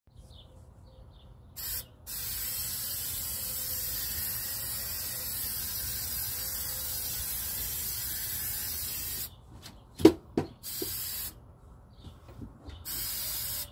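Aerosol spray can spraying in bursts: a brief hiss, then one long steady hiss of about seven seconds, then two shorter hisses. A few sharp knocks about ten seconds in.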